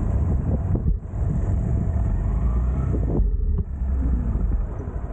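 Honda Grom's small single-cylinder engine running while riding, heavily covered by wind rumble on the microphone, with two brief dips about one second in and just past three seconds.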